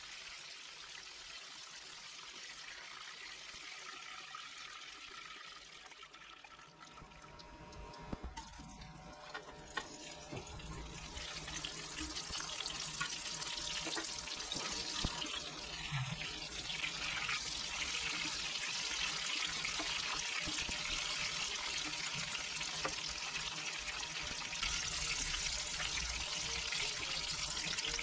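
Battered chicken pieces sizzling as they deep-fry in hot oil in a pan, a steady crackling hiss that grows louder about a third of the way in. A couple of sharp clicks sound just before it swells.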